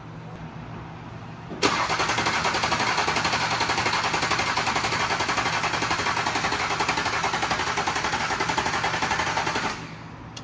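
Audi S4 B9's 3.0-litre turbocharged V6 petrol engine, running with new revised rocker arms fitted. It comes in suddenly about one and a half seconds in and runs loud and steady with a fast, even pulse. It drops back to a low hum near the end.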